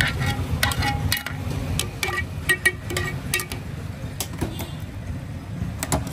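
Metal utensils clinking and knocking at a street-food stall: a dozen or so irregular sharp clinks, some ringing briefly, over a steady low street rumble. The clinks are busiest in the first three and a half seconds, with a pair near the end.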